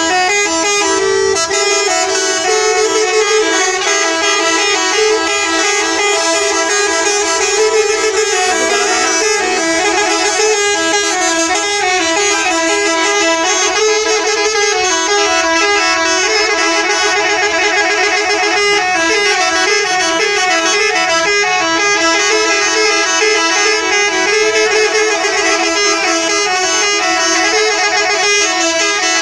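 Bus telolet horn, a multi-tone musical air horn, sounding loudly and without a break, its notes stepping up and down in a melody.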